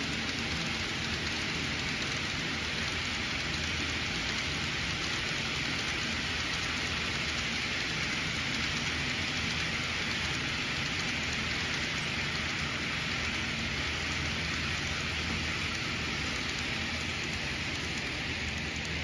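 HO scale model train rolling by: the metal wheels of a long string of hopper cars running on the track, making a steady, even hiss-like rumble.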